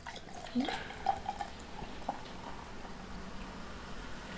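Beer poured from a glass bottle into a glass, with a few short glugs in the first second and a half, then a steady pour as the head foams up.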